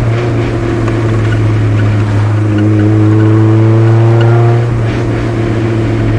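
Eunos Roadster's modified four-cylinder with individual throttle bodies, running through a new 60 mm Car's CP1 muffler while driving, a steady, moderate exhaust note. The pitch rises gently, then drops about four and a half seconds in.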